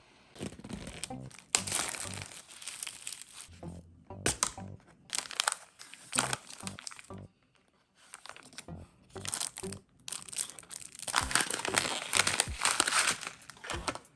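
Plastic packaging crinkling and rustling in irregular bursts as a self-heating hot pot meal is unboxed, with background music.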